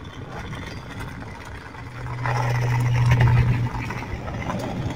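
Skateboard wheels rolling on asphalt: a steady rumble with a low hum that grows louder for a second or two in the middle.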